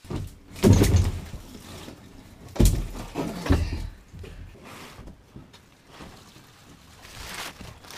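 A large plastic water tank being wrestled out of a wooden boat's bilge, knocking and scraping against the framing. There are heavy thumps about a second in and again near three seconds, then lighter knocks and rubbing as it is lifted clear.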